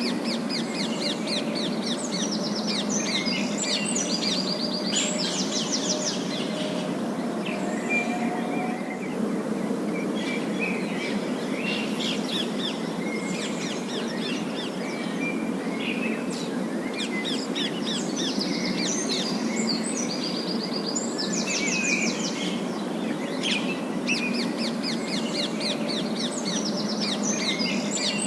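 Parakeets chattering in rapid, high trills and chirps that come in bursts every few seconds, over a steady low background hiss.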